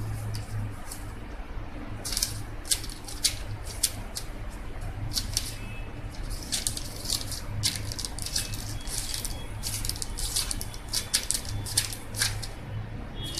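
Paper backing sheets of edible silver leaf (vark) rustling and crinkling as a hand opens them and rubs one flat onto the sweet. A run of quick, sharp crackles starts about two seconds in and stops near the end, over a low steady hum.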